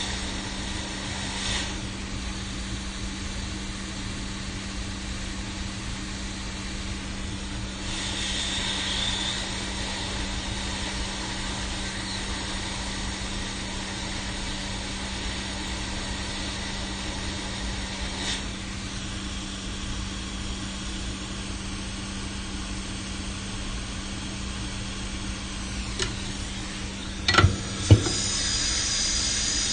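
Hot air rework station blowing steadily, giving an even hiss over a low steady hum while a component on a circuit board is reworked. A few sharp clicks near the end.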